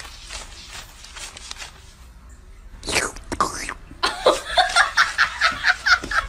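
Paper banknotes rustling and flicking as they are counted by hand. Near the end comes a quick run of short voice sounds, about five a second.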